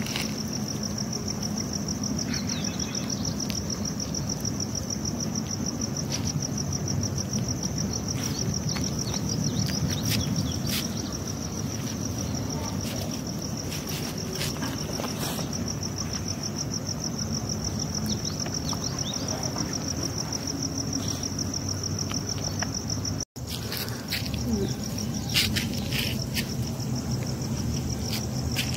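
Crickets trilling steadily, a continuous high pulsing chirp, with scattered faint clicks over it. The trill breaks off at a cut about 23 seconds in and is fainter after.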